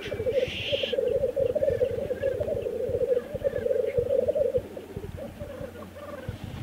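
Male black grouse bubbling on the lek: a continuous low, fast-warbling coo that breaks up and fades after about four and a half seconds, with a short hiss about half a second in.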